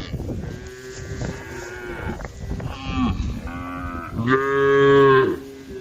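Several cows mooing, calls overlapping one after another as the herd calls to each other, with one long, loud moo about three-quarters of the way through.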